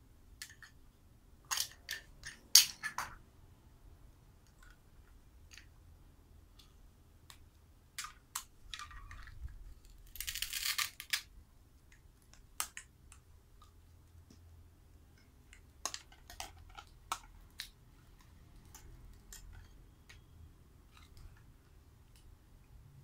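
Hard plastic toy food pieces clicking and clacking against each other as they are handled and pulled apart, the loudest clack about two and a half seconds in. About ten seconds in, a rasping rip of about a second, typical of the velcro that holds the toy's cut halves together being torn apart.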